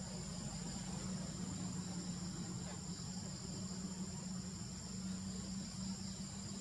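Steady chorus of forest insects, a continuous high-pitched trill, over a low steady hum.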